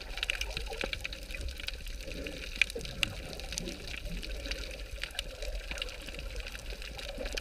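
Underwater ambience heard through an underwater camera: a steady muffled water noise with many scattered sharp clicks and crackles, a couple of them louder about two and a half to three seconds in.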